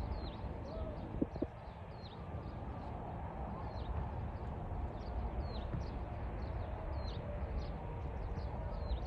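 Birds chirping over and over, short downward-sliding chirps about twice a second, over a steady low outdoor rumble.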